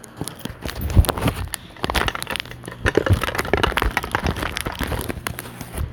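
Plastic being crinkled and handled close to the microphone: a dense, irregular run of crackles and rustles with a sharper crack about a second in.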